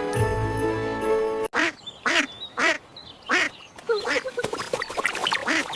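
Background music that cuts off abruptly about a second and a half in, followed by a run of duck quacks: short separate calls, coming faster near the end.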